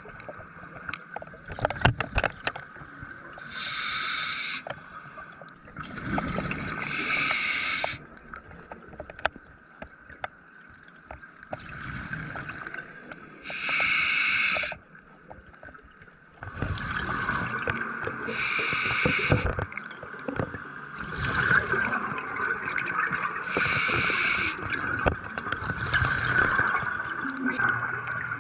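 Scuba diver breathing underwater through a regulator: exhaled bubbles gush out in bursts of about a second, roughly every five seconds, with faint knocks and gurgling between.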